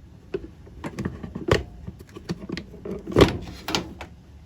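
Irregular clicks and knocks of hard parts being handled, about seven in all, with a sharp knock about a second and a half in and the loudest about three seconds in.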